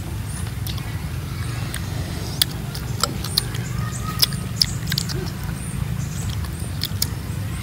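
Mouth eating sounds of fruit being bitten and sucked: many short wet clicks, smacks and slurps, irregular, over a steady low hum.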